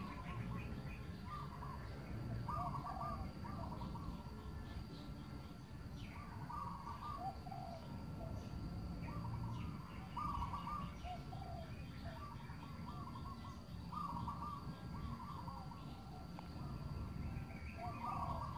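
Birds calling over and over in short chirping phrases, one every second or two, over a steady low rumbling background.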